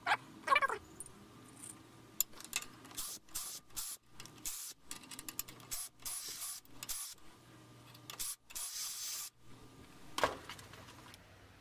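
Cordless drill run in a series of short bursts, deburring the backs of drilled holes in a metal bar. A brief falling squeal comes right at the start, and another about ten seconds in.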